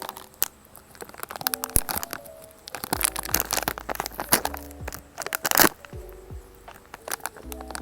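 Crispy bagnet chips (deep-fried pork belly) being bitten and chewed in a run of sharp, irregular crunches, the loudest a little past halfway, over background music with a simple melody.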